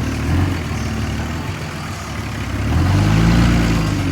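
Diesel vehicle engine running, easing off, then revving up again about three seconds in.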